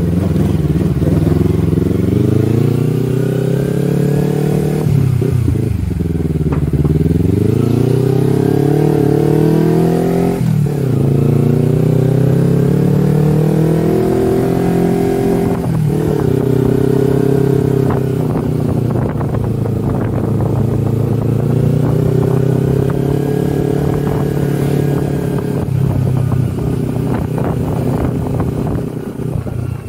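Kawasaki Versys-X 250 parallel-twin engine under way, its pitch rising and falling with the throttle. The pitch drops suddenly at gear changes about ten and sixteen seconds in. Light knocks and rattles are scattered through the second half.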